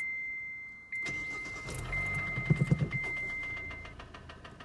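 A Kia car's warning chime sounding about once a second, four times, while the engine is cranked and catches about two seconds in. The engine then runs with a faint, even knock, the rod knock of a spun bearing.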